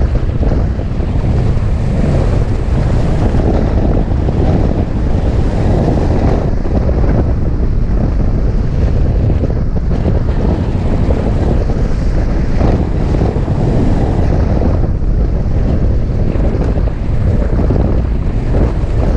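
Steady rush of airflow over a camera mounted on a hang glider in flight. The wind buffets the microphone with a loud, deep rumble.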